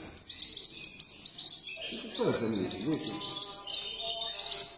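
A brood of European goldfinch nestlings begging for food: many quick, high-pitched cheeps overlapping continuously. A low wavering tone with harmonics comes in about two seconds in and fades after a second or so.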